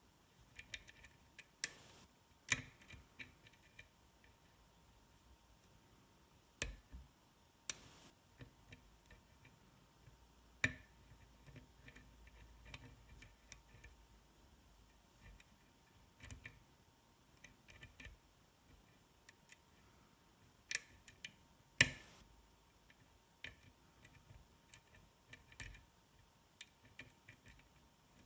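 Irregular small metallic clicks and ticks of a lock pick and tension wrench working the pins of a DOM S cylinder lock, with a handful of sharper, louder clicks.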